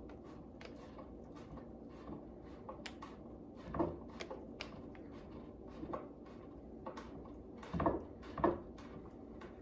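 Screws being driven by hand into a flat-pack writing desk: faint scattered clicks and creaks of the screw and tool turning, with a few louder knocks about four seconds in and again near the end.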